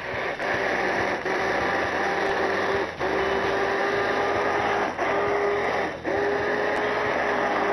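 Hand-held immersion blender running submerged in a pot of hot pea and vegetable broth, puréeing it into soup. The motor whines steadily, with brief dips about three, five and six seconds in.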